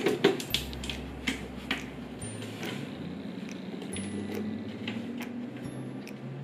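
Irregular light clicks and taps from a cat batting at a PetSafe Flik automatic teaser toy, its paws knocking the round plastic housing and the string the toy's mechanism flicks out.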